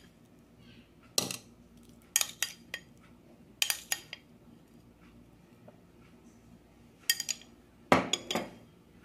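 Metal spoon clinking and scraping against a plate and a glass tumbler while banana pieces are spooned out. The sharp clinks come in about five short clusters, with quiet pauses between.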